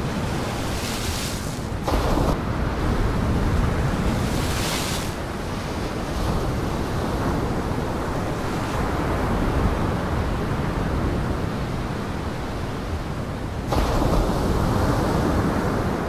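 Heavy storm surf: waves breaking continuously with wind rumbling on the microphone, with surges of hissing spray and two sudden jumps in loudness, about two seconds in and again near the end.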